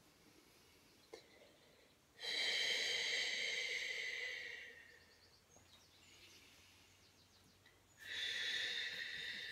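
A person taking slow, deep, audible breaths: two long breaths of about two and a half seconds each, one starting about two seconds in and fading out, the next starting near the end.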